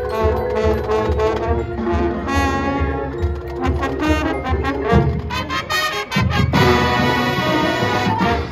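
High school marching band playing brass and percussion, with a steady drum pulse under the horns. About six seconds in the full brass section holds a loud sustained chord.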